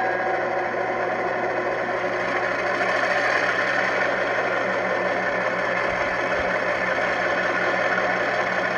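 Simulated diesel prime-mover sound from the LokSound 5 sound decoder in a Rapido E8A model locomotive, played through its Tang Band W1-2361S speaker: a steady running engine with a low pulse and rattle.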